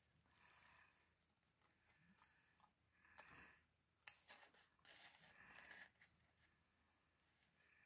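Faint sounds of large scissors cutting through a sheet of EVA craft foam, with soft snips and a sharp click of the blades about four seconds in.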